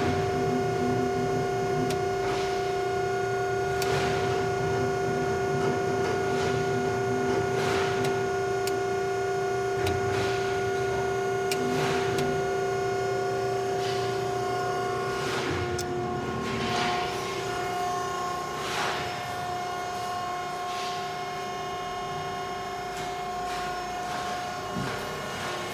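Guillotine metal shear running, its motorised back gauge being driven in: a steady machine hum with several held tones that shift about fifteen seconds in.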